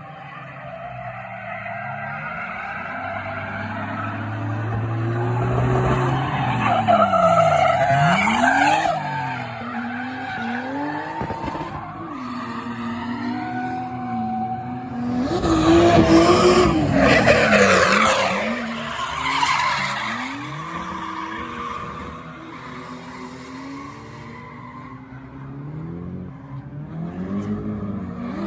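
Drift cars' engines revving, the pitch climbing and dropping again and again with throttle and gear changes, over tyres squealing and skidding; the loudest stretch comes about halfway through.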